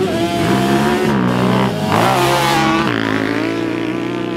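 Two sport ATVs launching from a standing start in a drag race, engines revving hard and climbing in pitch through about three quick gear shifts. They then run at full throttle and grow a little fainter as they pull away.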